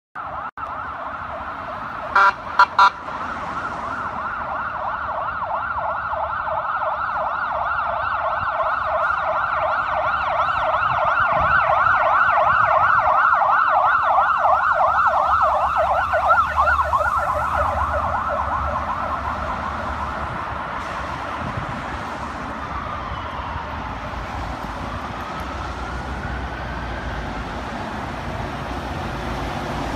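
Emergency vehicle siren in a fast-wavering yelp that grows louder, peaks about halfway through and then fades, giving way to slower rising and falling tones later on. Three short horn blasts come about two seconds in, over a low traffic rumble.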